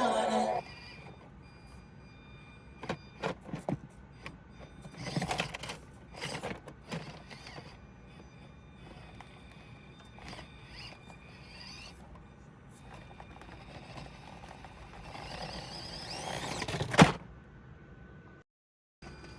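Axial SCX24 Deadbolt micro RC crawler's small brushed motor and gearbox whining as it crawls, with scattered knocks of its tyres and chassis on the course. Near the end the whine rises and ends in a sharp knock.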